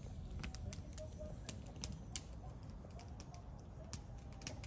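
Wood fire crackling in an outdoor fire pit: irregular sharp pops and snaps, several a second, over a low steady rumble.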